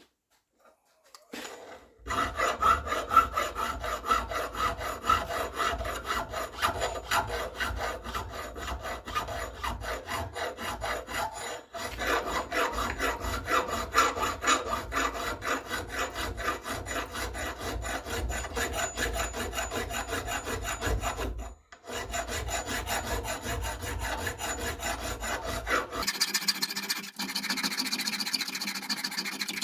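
Fast, repeated rasping strokes of a hand tool cutting brass for a rifle's trigger guard, breaking off briefly twice. Near the end the rasping turns finer and higher.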